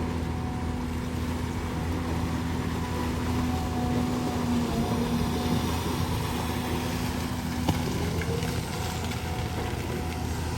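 An engine running steadily at an even, unchanging pitch, like idling heavy machinery or a vehicle standing with its engine on.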